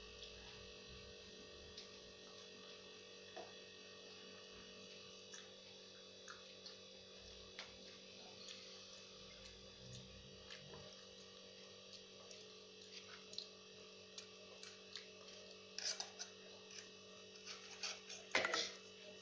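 Fork and spoon clicking lightly against a plate now and then over a faint steady room hum, with the clicks coming more often and a louder clatter near the end.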